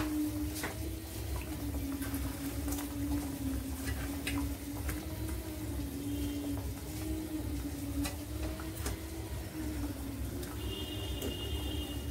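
Fish curry broth boiling in a pan on a gas stove as fried fish pieces are slipped in by hand, with a few light clicks. A steady low hum runs underneath.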